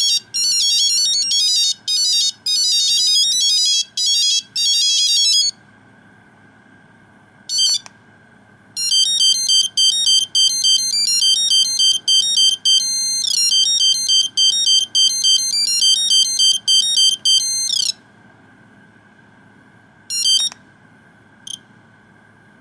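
Nokia 2100 mobile phone playing monophonic beeping ringtone melodies through its small speaker: one tune stops about five seconds in, a short beep follows, and another tune plays from about nine to eighteen seconds in. Two brief beeps come near the end.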